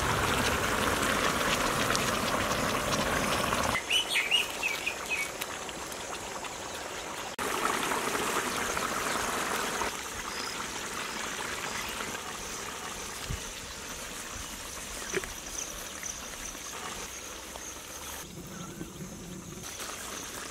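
Large pot of fish curry bubbling and simmering, a steady hiss that comes in two stretches separated by quieter outdoor ambience. Birds chirp briefly about four seconds in.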